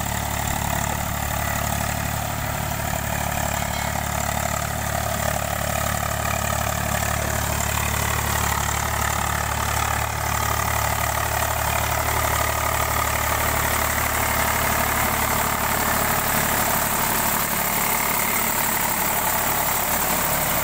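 Eicher 485 tractor's three-cylinder diesel engine running steadily as the tractor drives across a wet paddy field pulling its tillage implement.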